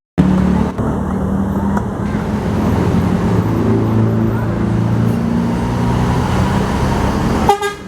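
Tour bus engine running close by, with traffic noise; a short, sharp sound with many stacked tones comes near the end.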